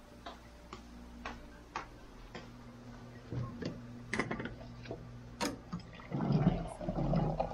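Footsteps ticking about twice a second over a steady low hum, with two sharper knocks about four and five and a half seconds in. Near the end, water runs from a water dispenser into a mug.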